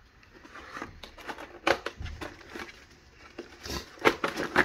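Hard plastic pistol cases being handled on a table: a scatter of short clicks and knocks with some crinkling, the loudest knocks near the end.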